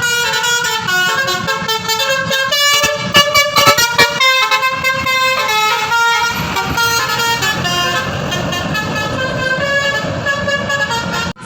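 Indonesian bus 'telolet' horns: several pitched air-horn notes played in quick succession as a tune, loudest a few seconds in, with engine and road noise underneath that grows in the second half. The sound cuts off abruptly near the end.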